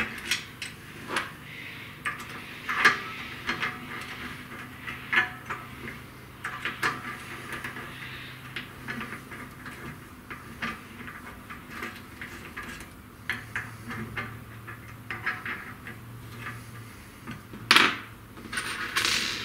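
Small metallic clicks and clinks of screws and spacers being handled and fitted against the CNC router's gantry side plate and rail blocks, the screws left loose. There is a louder clatter of parts near the end.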